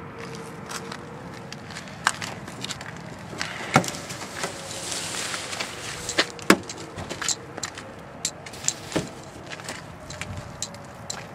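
Distant outdoor tornado warning siren heard faintly as one slowly wavering tone, sagging and then rising again. Irregular sharp clicks and knocks close to the microphone are louder than the siren, with a brief rush of hiss in the middle.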